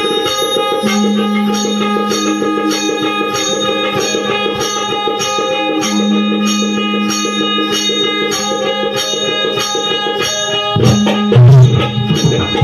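Instrumental Shakti-Tura folk music: held melodic notes over a steady percussion beat, with louder drums coming in about eleven seconds in.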